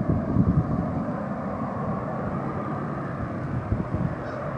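Distant rumble of a Boeing 737-200's Pratt & Whitney JT8D turbofans on final approach, under gusty wind on the microphone that is strongest in the first second.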